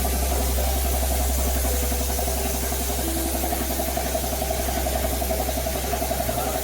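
Air compressor motor running steadily, with a deep hum and a fast, even pulsing.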